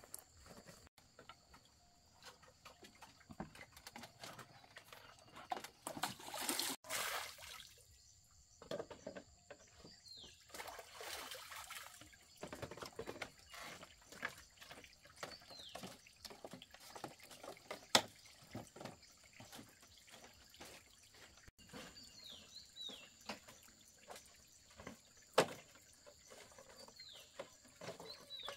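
Faint, irregular splashing and dripping of water, with scattered small clicks and knocks. A sharper knock comes about eighteen seconds in and another a few seconds before the end.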